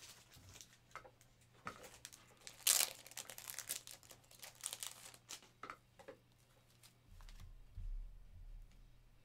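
Plastic card sleeves crinkling and rustling as they are handled, a run of short crackles loudest about three seconds in, with a dull low bump near the end.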